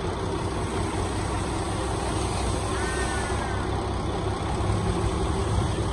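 Small dump truck's engine running steadily with its bed tipped up, as a load of soil slides off the back onto a pile.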